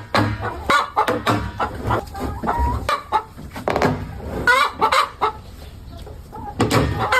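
Domestic chickens clucking and calling in short repeated phrases, with frequent sharp taps and clicks between the calls.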